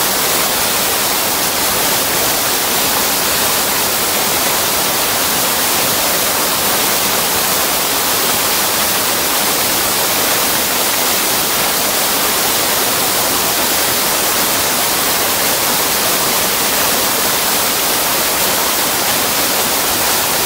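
Brook in spate after heavy rain pouring over a weir and churning in the pool below: a loud, steady rushing hiss of water that does not change.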